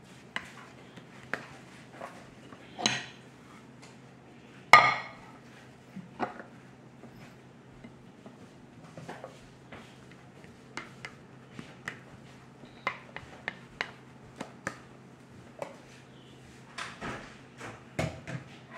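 Blue plastic bowl knocking and scraping against a ceramic plate as a mound of soft dough is pressed and turned into a dome: irregular light clicks and taps, the loudest about five seconds in.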